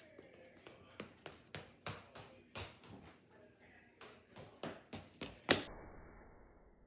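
A series of about a dozen sharp taps or knocks, irregularly spaced at a few per second, the last one the loudest.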